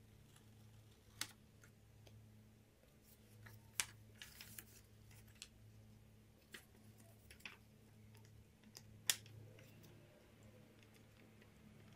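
Scissors snipping paper: a few separate sharp snips, with a quick run of small cuts about four seconds in, over a faint steady low hum. A single sharp click near the end is the loudest sound.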